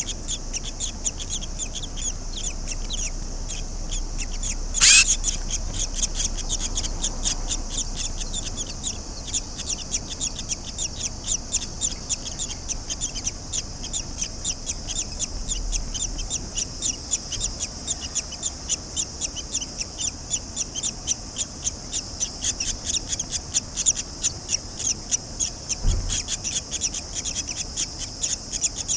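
Barn swallow chicks chirping in quick, repeated high calls, about three a second, with one louder call about five seconds in. A soft low thump comes near the end.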